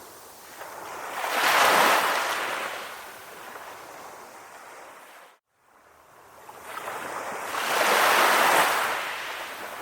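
Sea waves breaking and washing ashore, swelling in two surges, one about 2 seconds in and a bigger rush near the end. The sound drops out briefly to near silence about halfway through.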